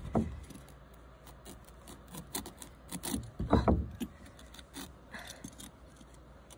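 Metal vegetable peeler scraping strips of skin off a pumpkin, a run of short, sharp scraping clicks. Two louder brief low sounds stand out, one just after the start and one about three and a half seconds in.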